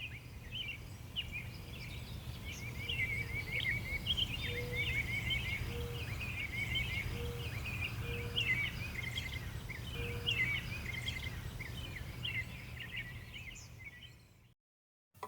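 Many small birds chirping and twittering together over a steady low background rumble, with a lower short note repeating about six times in the middle. It all fades out near the end.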